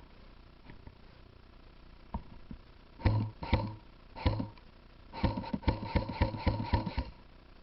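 Airsoft M4 electric gun firing: a few single shots, then a quick run of about ten shots at roughly five a second, each a sharp crack with a brief gearbox whir.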